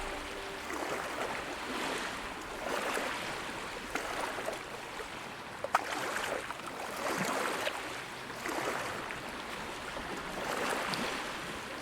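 Water sloshing and splashing in uneven swells every second or two, with a few light clicks.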